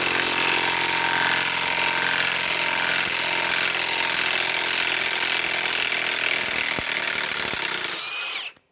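Milwaukee M18 Fuel Gen 2 high-torque impact wrench running in reverse, its hammer mechanism impacting continuously as it loosens. Near the end the trigger is released and the motor winds down with a short falling whine.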